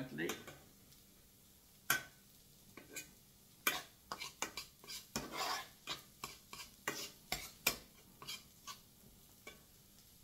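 Spatula scraping and knocking against a frying pan as eggs are stirred and broken up while they fry, in irregular strokes that come thickest through the middle and die away near the end.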